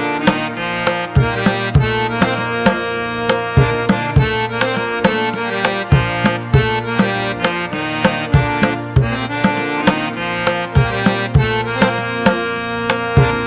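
Indian music with tabla drumming in a steady rhythm under a sustained melody.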